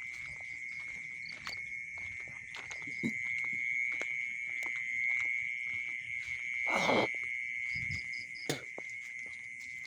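Night insects chirring in a steady, continuous high drone. Scattered short clicks and knocks sound over it, and a louder brief sound about seven seconds in.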